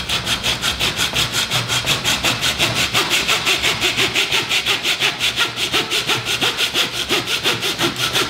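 Hand meat saw (bow-frame butcher's saw) cutting through the vertebrae of a pork loin, in fast, even back-and-forth strokes: the blade working through bone, chining the spine off the rack.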